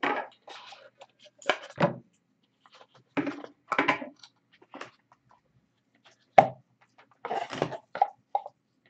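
Boxed trading cards being handled on a table: irregular clacks, knocks and rustles of cardboard and thick cards being lifted out and stacked. The sharpest knock comes about six and a half seconds in.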